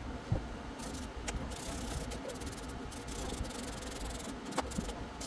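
Hands working on steering wheel parts: rubbing and handling noises with a few light clicks.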